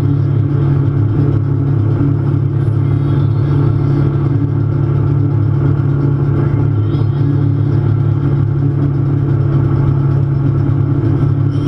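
A wake boat's inboard engine drones steadily under load, with the wake water churning and hissing behind the stern. The drone holds an even pitch.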